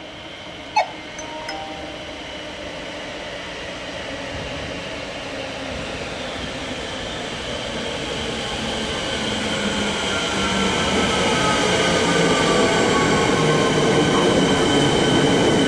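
Electric suburban Metro train approaching through the station, its rumble growing steadily louder, with a falling whine as it slows. A single sharp, short ringing knock sounds about a second in.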